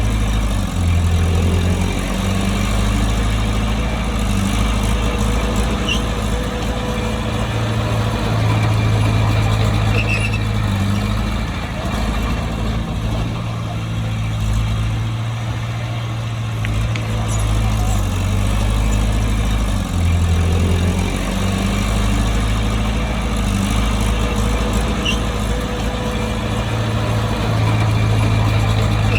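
Bulldozer's diesel engine running under load, a steady low drone whose note shifts as the load changes, dipping briefly about a second in and again about twenty seconds in.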